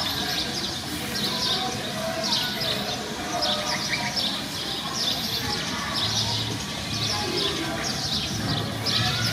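Small birds chirping over and over: short high chirps, a few every second.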